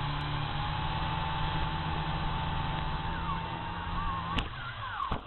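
Small toy quadcopter's motors running steadily, a hum with a constant tone under a hiss. In the last two seconds the pitch wavers up and down, with a sharp knock about four and a half seconds in and another just before the end.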